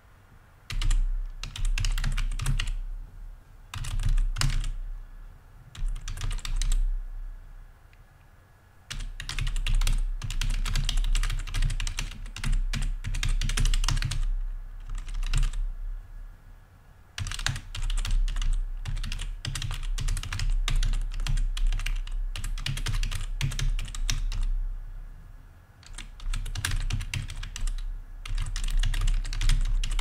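Typing on a computer keyboard: runs of rapid key clicks lasting a few seconds each, broken by short pauses, with a low thud under the keystrokes.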